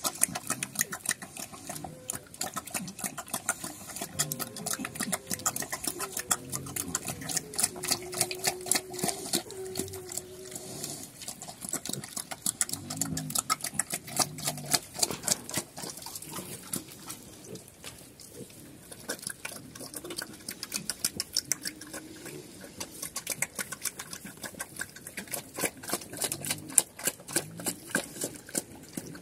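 Chrouk Kandorl piglets suckling at a nursing sow: a fast, continuous run of small smacking clicks, with a few low pig grunts now and then.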